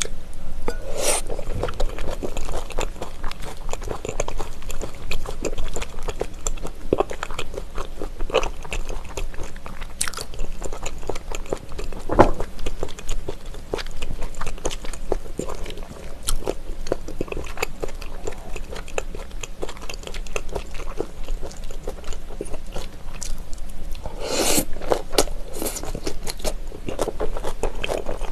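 Close-miked eating of sliced raw trout tossed with shredded vegetables and sauce: steady chewing with wet, sticky mouth sounds and the crunch of raw vegetables, full of irregular sharp clicks. The noise swells for a second or two about four seconds before the end.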